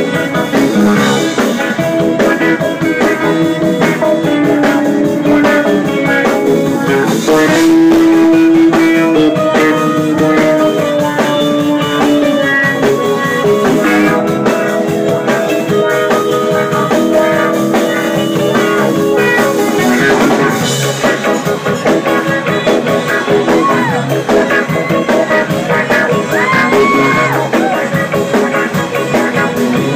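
Live rock band playing a blues-rock tune: electric guitar, keyboard, bass and drums.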